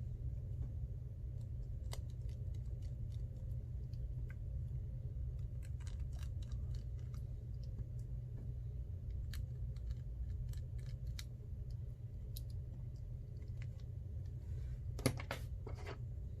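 Small metal repair tools clicking and tapping against an iPhone 6 Plus's internal parts and screws during disassembly: scattered light ticks, with a louder cluster of clicks about fifteen seconds in, over a steady low hum.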